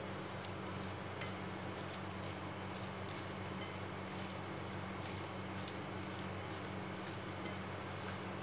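A steady low hum over an even hiss, with faint scattered clicks and squishes of fingers working a moist mix of chopped onion, curry leaves and spices on a plate.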